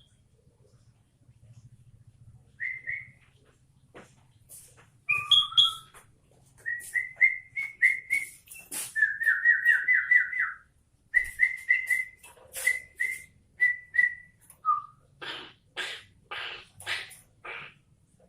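Caged bulbul singing: clear whistled notes repeated in short phrases, a quick rattling trill in the middle, then a string of harsh, scratchy notes near the end.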